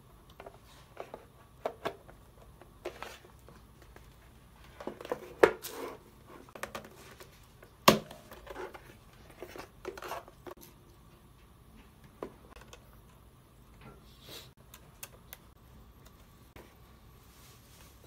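ELZONETA video doorbell being handled and fitted onto its plastic mounting bracket on a cardboard board: scattered clicks, knocks and rubbing of plastic, with two loud sharp clicks about five and a half and eight seconds in.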